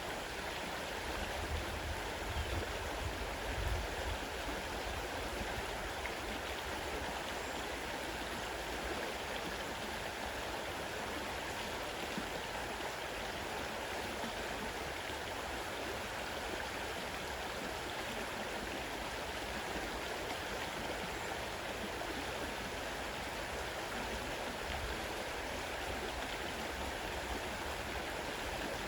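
Fast-running river water rushing steadily, with a few brief low rumbles about two to four seconds in.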